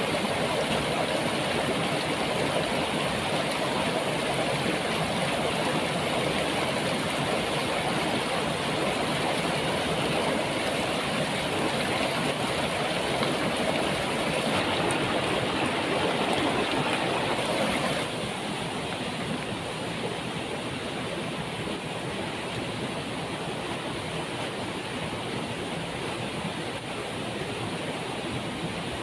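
Waterfall's steady rushing water, a constant roar without breaks, turning somewhat quieter and duller suddenly about two-thirds of the way through.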